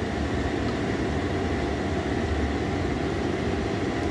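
Steady low mechanical drone with a faint hiss, the hum of a running fan or kitchen appliance, holding level throughout.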